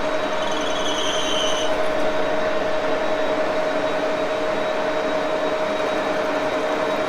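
Axelson metal lathe running with a steady gear-driven hum while a cutting tool trims a thin aluminum tube. A brief high-pitched squeal from the tool on the tube starts about half a second in and lasts about a second.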